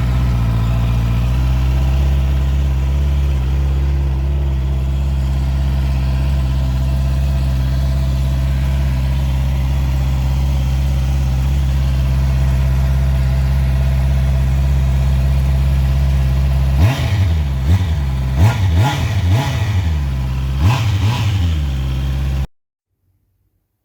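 Motorcycle engine running through its freshly polished and refitted exhaust: a steady idle just after start-up, then several quick throttle blips in the last few seconds, before the sound cuts off suddenly.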